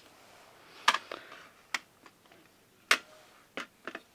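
Metal watercolor palette tin being handled and shut: a handful of sharp clicks and taps at irregular intervals, loudest about a second in and about three seconds in.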